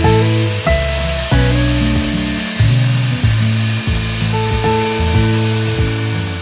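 Background music with a repeating pattern of steady bass and melody notes, the loudest sound. Beneath it, the steady high whine and hiss of a small high-speed rotary tool grinding metal.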